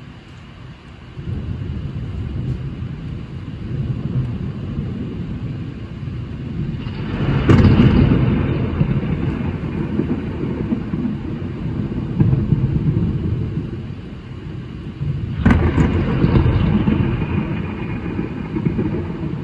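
Thunderstorm over heavy rain: thunder rolling low and steady, with two sharp, loud claps, one about seven and a half seconds in and another about fifteen seconds in, each rumbling on for several seconds.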